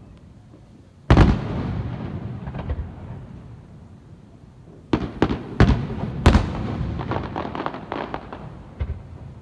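Aerial firework shells bursting: one loud boom about a second in with a long fading echo, then a cluster of bangs around the middle, a quick run of crackling pops, and one more bang near the end.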